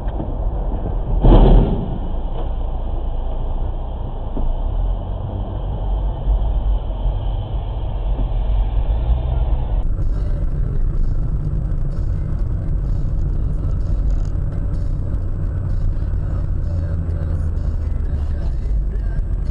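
Steady engine and road noise of a car, recorded from inside the cabin by a dashcam, with one loud thump about a second and a half in. About ten seconds in, it cuts to a different dashcam recording of a car driving, with a steady low engine and road hum.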